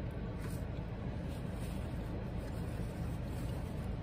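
Steady low rumble of a parked car idling, heard from inside the cabin.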